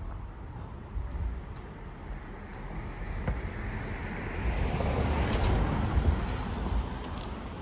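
A car driving past on the street, its tyre and engine noise swelling to a peak about halfway through and fading away near the end, over a low rumble of wind on the microphone.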